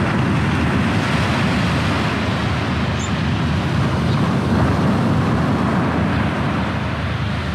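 Waves breaking on a sandy beach at high tide, heard as a steady rushing noise with wind rumbling on the microphone. It swells a little around the middle and eases near the end.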